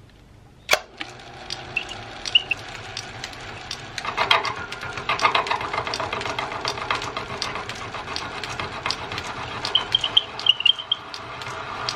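Small metal lathe starting with a sharp click, then running and taking a cut on a drill bit's Morse-taper shank, with a regular ticking throughout and brief high chirps near the end.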